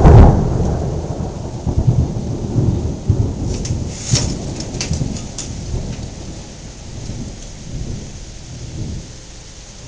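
A thunderclap: a sharp crack right at the start that rolls into a low rumble, fading unevenly over several seconds. Steady heavy rain runs underneath.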